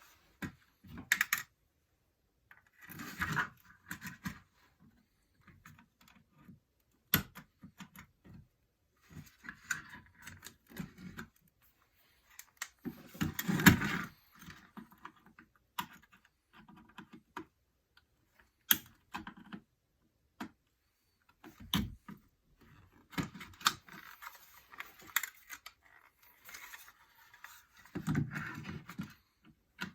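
Parts of a fire alarm being taken apart by hand: irregular sharp clicks and short bursts of rattling and scraping from small hard pieces, the loudest burst about halfway through.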